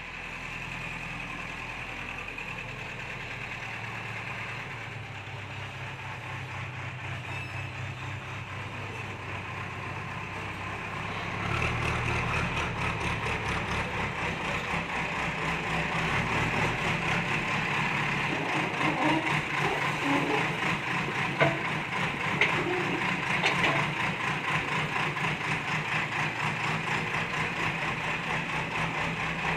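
Backhoe loader's diesel engine running, picking up to a louder, busier sound under load about a third of the way in. A few sharp knocks come through later on.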